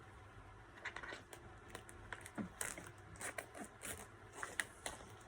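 Faint crinkling, scratching and rustling of a vinyl record's sleeve and plastic wrapping being handled, in scattered short crackles.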